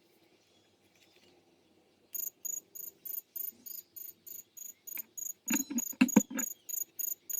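A quick, even series of short high-pitched chirps, about three a second, starting about two seconds in, with a few soft knocks midway.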